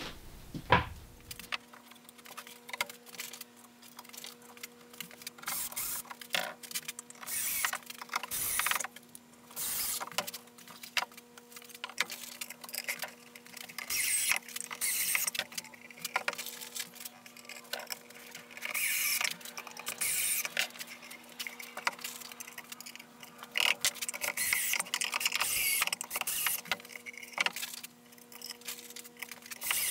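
A cordless drill-driver runs in short bursts, driving screws into a white chipboard cabinet carcass during assembly. Between the runs there are knocks and clatter from the panels being handled on the bench, over a faint steady hum.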